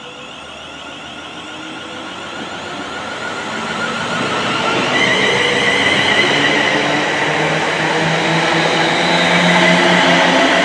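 Class 350 Desiro electric multiple unit running past on the rails, growing steadily louder as it nears and draws alongside. A steady high whine comes in about halfway through, over the wheel and rail rumble.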